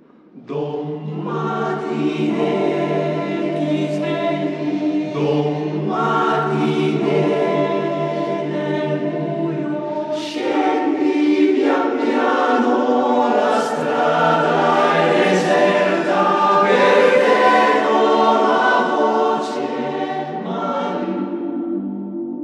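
Choir singing a cappella in close harmony. The full choir comes in loudly about half a second in, over a quieter held chord, and goes on with moving chords and short breaks between phrases.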